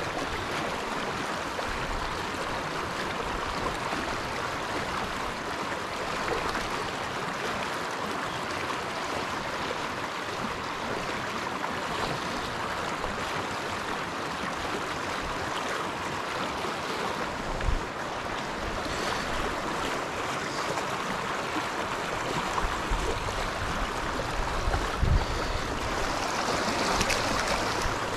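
Shallow mountain river running steadily over rocks. A few brief low thumps come in about two-thirds of the way through and again near the end.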